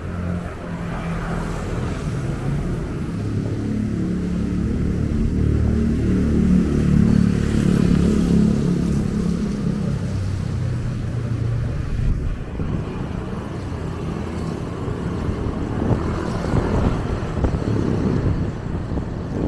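Street traffic with a vehicle engine running close by, growing louder to a peak about seven seconds in and then easing off.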